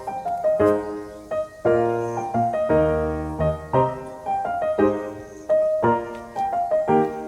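Background piano music: a gentle melody of struck notes and chords, with a fuller low chord about three seconds in.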